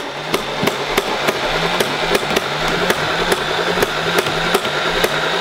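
Nerf Rival Nemesis MXVII-10K blaster firing full-auto: a rapid, evenly spaced string of shots over the steady whir of its motors.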